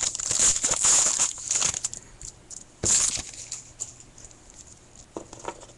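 A trading-card pack wrapper being torn open and crinkled by hand, loud and crackly for the first two seconds with another short crinkle about three seconds in, then softer clicks of the cards being handled.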